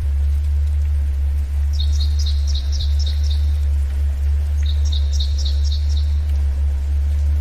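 A songbird sings two phrases of rapid, repeated high chirps, the first about two seconds in and the second about five seconds in. Underneath is a loud, steady low tone, the theta-wave tone of the track, and a soft hiss of forest ambience.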